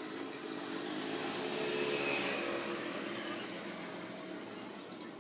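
A motor vehicle passing by: its engine and road noise swell to a peak about two seconds in, then fade away.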